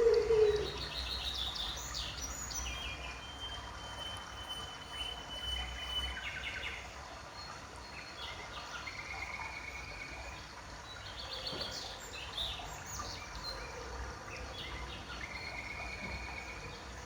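Birds calling: scattered high chirps and trills and a few held whistled notes, with the end of a low cooing call at the very start, over a faint steady low hum.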